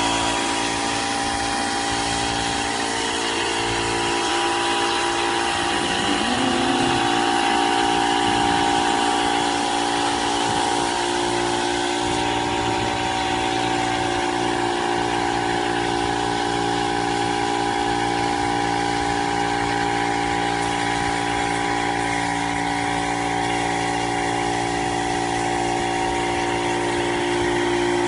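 Portable electric air compressor running steadily, a constant hum made of several steady tones, with the even hiss of a paint spray gun.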